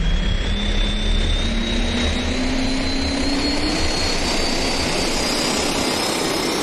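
Rocket engine roar: a loud, steady rushing noise that starts abruptly, with two faint tones gliding slowly upward through it.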